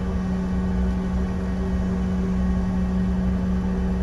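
Cabin noise inside a Bombardier CRJ-700 regional jet taxiing after landing: a steady low rumble with a constant low hum, the rear-mounted engines at taxi idle.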